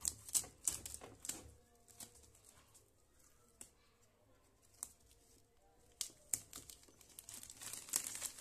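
Clear plastic wrapping being torn and pulled off a pack of notebooks, crinkling and crackling. A quick flurry of crackles comes in the first second and a half, then scattered single crackles follow.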